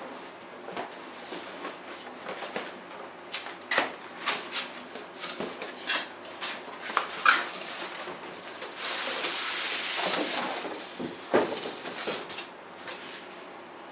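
Cardboard product box and its white foam insert being handled and opened: a string of light taps, knocks and scrapes, then a steady sliding hiss lasting about a second and a half, followed by a couple of sharper knocks.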